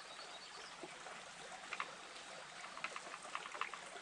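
Faint steady background hiss with a few light clicks and taps, the loudest just before the middle and several in the last second or so.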